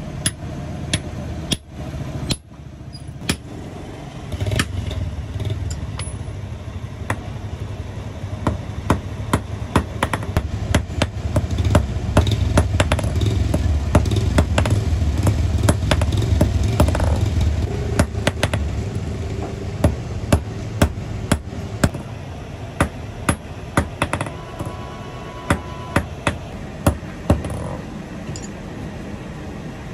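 Small hand hammer striking metal on a steel anvil block: sharp, irregular taps, as on a small rivet or pin. A low, steady mechanical rumble swells in the background about four seconds in and fades out a little past the middle.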